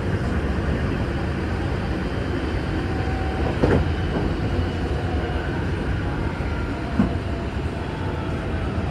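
Passenger train running, heard from inside the car: a steady low rumble of wheels on the rails, with two short louder knocks, one about three and a half seconds in and one near the end.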